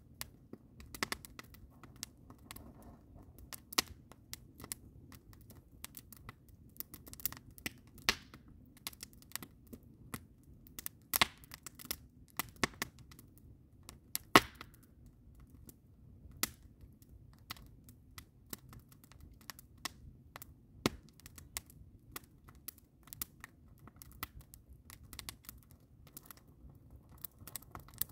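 Campfire of split logs and green conifer boughs crackling, with irregular sharp pops and one louder pop about fourteen seconds in.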